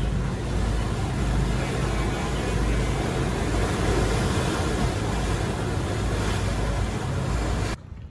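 A boat's engine runs steadily under the rush of water past the hull, a loud even noise heaviest in the low end. It cuts off suddenly near the end.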